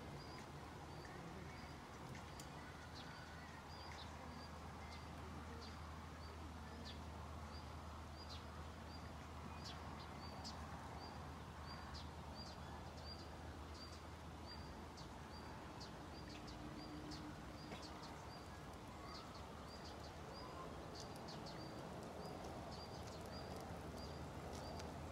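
A small animal chirping: one short high note repeated at an even pace, about two a second, with a few faint clicks and a low steady rumble underneath.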